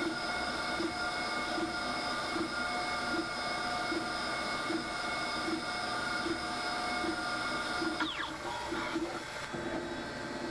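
Mazak Integrex mill-turn machine cutting a thread on an aluminum mandrel: a steady machine whine with a regular pulse a little more than once a second. About eight seconds in, the whine stops with a short falling sweep.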